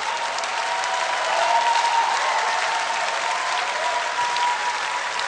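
Large studio audience applauding steadily, with a thin high tone held over the clapping for most of it.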